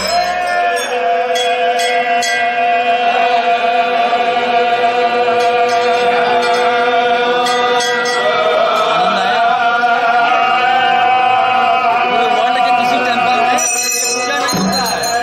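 Several priests' voices chanting Hindu mantras together for the aarti, with long steady held notes.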